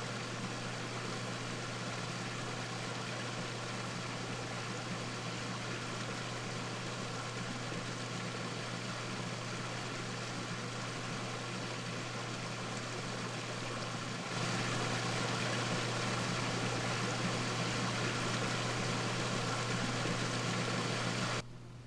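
Steady low droning hum over a hiss. It grows a step louder about fourteen seconds in and cuts off suddenly near the end.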